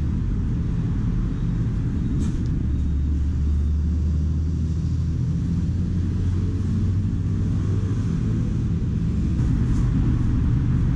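Street traffic: a motor vehicle's engine running with a steady low rumble.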